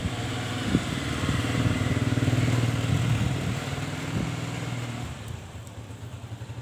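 A motor vehicle's engine passing by, building to its loudest about two and a half seconds in and fading away near the end, with a single light knock about a second in.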